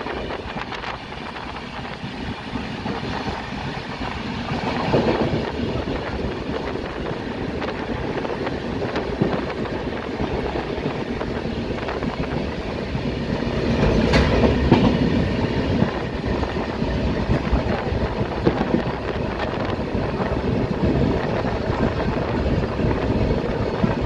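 Train running at speed, heard from the open door of a locomotive cab: a steady rush of wheels on rail and wind, with clickety-clack over the track joints. It swells a little past halfway, with one sharp clack.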